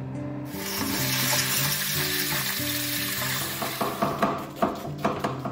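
Food sizzling in a hot pan, starting suddenly about half a second in and fading after a few seconds. Near the end, a knife chops a red onion on a wooden cutting board in a quick run of sharp knocks. Background music plays throughout.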